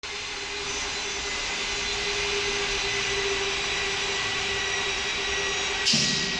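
XY-OQ-7000A automatic napkin tissue folding machine running with a steady hum and whine. A short, loud hiss comes about six seconds in.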